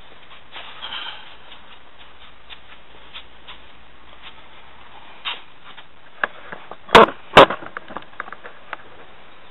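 Tools and objects being handled and set down on a workbench: scattered light clicks and taps, with two sharp, loud knocks about half a second apart near the end.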